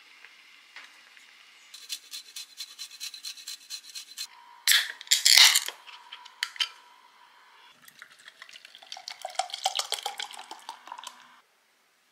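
Light clinks and taps of a spoon against a pan, then a beer can cracked open with a sharp hiss about five seconds in. After that the beer is poured into a glass, with a gurgling, fizzing crackle that stops shortly before the end.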